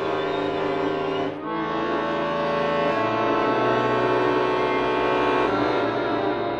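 Contemporary chamber music for flutes, violin, viola and accordion: long held chords over low drones, the harmony shifting about a second and a half in, again at about three seconds, and near the end.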